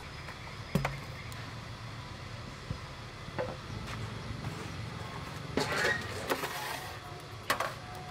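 Handling noises from bowls and utensils being put down on a wooden table: a sharp click early on, a few light knocks, then a busier clatter about six seconds in and one more knock near the end, over a steady low hum.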